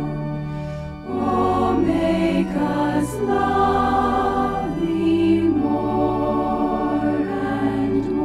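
Background choral music: a choir singing slow, held chords that change every second or two.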